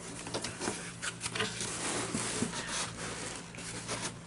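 Hands rubbing and scraping over a cardboard shipping box and prying its lid flap open: an uneven run of short scratches and rustles.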